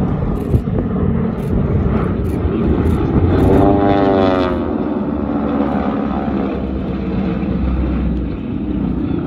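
Formation of radial-engine T-6 Texan trainers flying overhead: a steady propeller-engine drone, with a louder pitched engine note swelling and bending in pitch about three to four seconds in as the planes pass closest.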